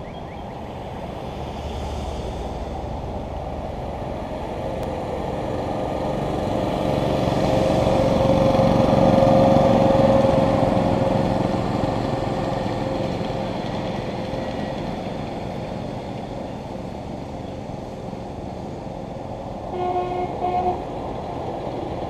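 Ride-on miniature train rolling past on its track: the rumble of the locomotive and the passenger cars' wheels on the rails grows, peaks about halfway through, and fades. Near the end a horn toots briefly, twice.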